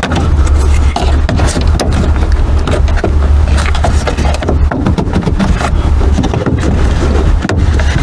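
Plastic rear interior trim of a Honda Civic coupe being pried and pulled loose by hand: irregular scrapes and clicks as the piece's clips release, over a steady low rumble that drops out for a moment a few times.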